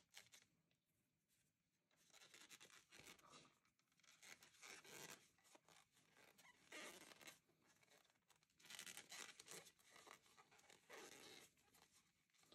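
Near silence, broken four times by faint, short rustles as t-shirt yarn is drawn through the stitches with a crochet hook.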